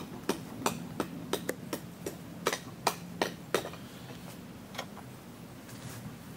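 Burning charcoal in a clay brazier crackling: a run of sharp, irregular clicks and pops, about three a second at first and sparser after about four seconds in.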